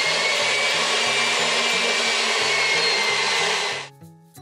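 Electric stand mixer running at speed, beating egg whites in its steel bowl: a loud, even motor whir with a steady whine, which stops abruptly near the end.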